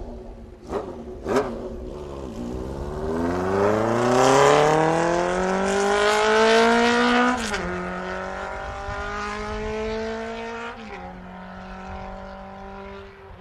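1980 Honda CB750C's air-cooled DOHC inline-four, breathing through a 4-into-1 exhaust, accelerating hard past and away through the gears. Its pitch climbs steadily for several seconds, drops sharply at an upshift past the middle, climbs again and drops at a second upshift near the end as it fades. There are two sharp pops about a second in.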